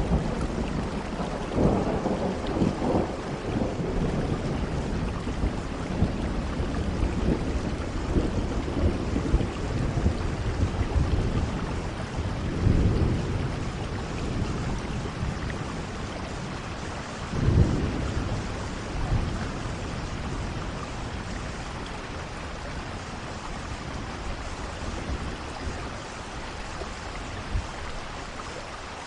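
Steady rain falling, with thunder rumbling in several waves; the loudest rumble comes a little past halfway, and the thunder dies down over the last third.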